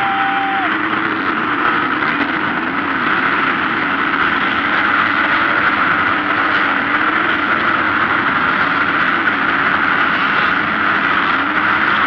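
Many motocross bike engines running and revving together as a pack of riders goes through a dirt corner, a loud continuous sound with pitch rising and falling as the bikes throttle on and off.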